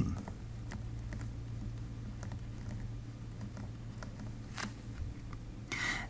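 Faint taps and scratches of a stylus writing on a pen tablet, with one louder stroke a little before the end, over a steady low hum.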